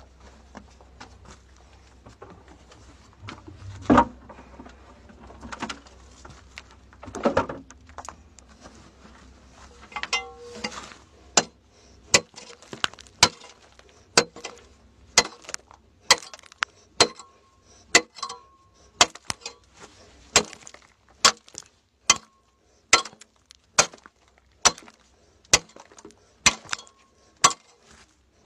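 A metal digging tool striking hard, rocky earth by hand. A couple of heavier thumps come first, then, from about a third of the way in, sharp clinking blows at a steady pace of about one a second.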